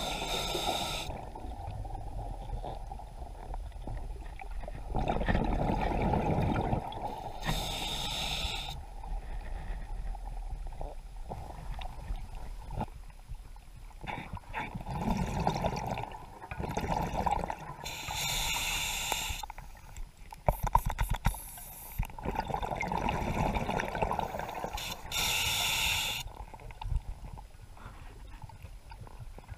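Scuba diver breathing through a regulator underwater: four short hissing inhalations several seconds apart, each followed by a longer gurgle of exhaled bubbles.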